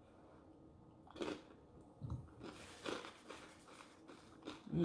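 Close-miked chewing of food, with one bite about a second in and irregular chewing through the second half.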